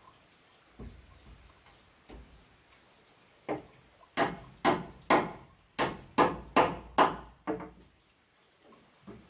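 Repeated sharp strikes on wood, about two a second for some four seconds, after a few softer knocks.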